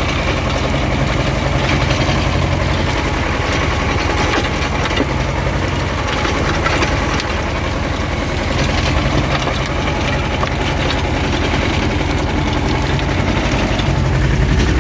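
Vladimirets T-25 tractor's air-cooled two-cylinder diesel running steadily under load, held below full throttle, while driving a Bomet rotary tiller through the soil via the PTO.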